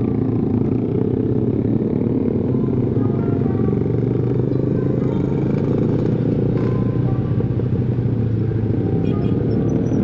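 Steady rumble of a motorbike ride at low speed: an automatic scooter's engine running with wind noise on the microphone, with other motorcycles riding close alongside.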